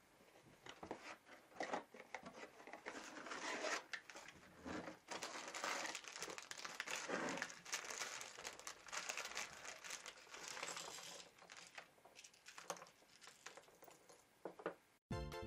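Plastic parts bags from a Lego set being crinkled and torn open, with irregular rustling and small plastic pieces clicking onto a table. Electronic music starts abruptly near the end.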